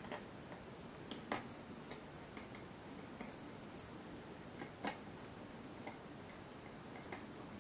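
A few faint, irregular metallic clicks and taps from handling a mortice lock and tools, the loudest about a second in and again near five seconds, over low background hiss.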